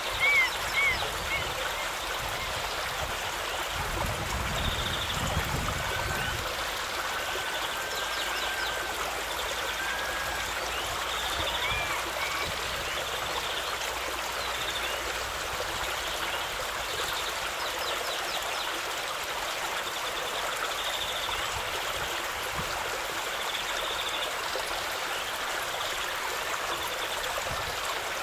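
River water rushing over rocks, a steady flowing sound, with a few short high chirps scattered over it.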